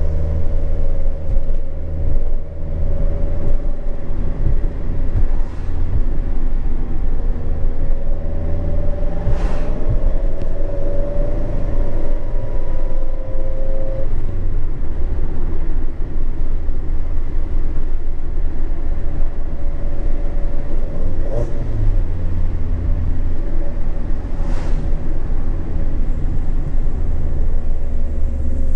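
Mazda MX-5 Miata's 2.0 L SkyActiv four-cylinder breathing through a Skunk2 4-1 header and Remark cat-back exhaust, heard from inside the cabin while cruising: a steady low exhaust drone over road noise. The engine note climbs slowly and then drops about 14 seconds in with a gear change, then settles steady again.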